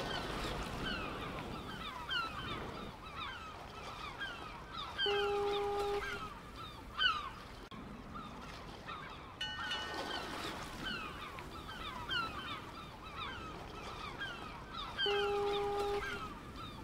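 A looped field recording of many birds calling in quick short downward calls, repeating about every ten seconds. A steady held tone sounds for about a second twice, ten seconds apart, and a brief loud sound comes about seven seconds in.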